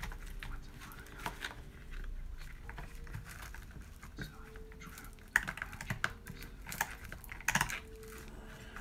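Irregular clicks and light knocks of plastic and metal parts of an Arrma Outcast 6S RC truck's drivetrain being handled as a driveshaft is worked loose. There is a sharper knock about five seconds in and a quick cluster of clicks a couple of seconds later.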